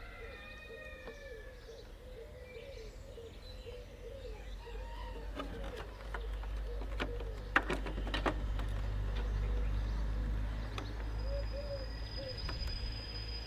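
Birds calling in the background, a repeated wavering coo, with a run of sharp clicks and knocks about six to eight and a half seconds in.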